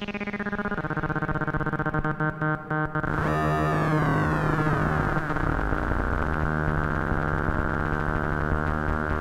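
Moog Werkstatt-01 analog synthesizer holding a buzzy drone while its knobs are turned. It flutters about two seconds in, then sweeps down from very bright to dull over about three seconds and settles into a steady tone.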